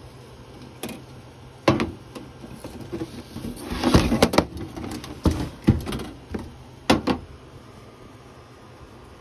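Handling noise: scattered sharp knocks and a brief scraping rustle as the plastic VCR and the camera are moved about, over a faint steady hum.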